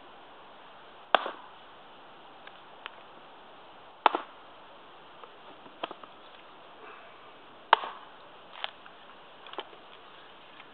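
Small Prandi Yankee axe with a 600 g carbon-steel head splitting a knotty hardwood log on a chopping block: three sharp chops a few seconds apart, the last the loudest, with lighter knocks of wood in between.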